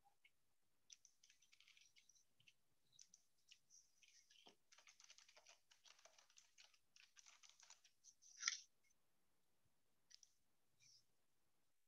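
Faint computer keyboard typing and clicking, picked up by an open microphone, with a sharper click about eight and a half seconds in.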